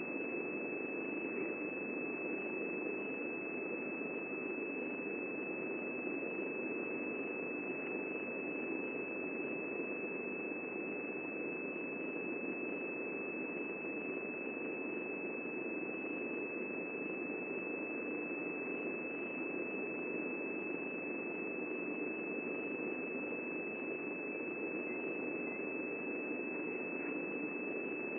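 A steady high-pitched tone held without change over a constant hiss.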